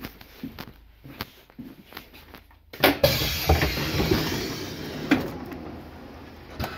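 Footsteps along a train carriage, then about three seconds in the train's sliding passenger doors open with a sudden loud rush of noise that slowly fades.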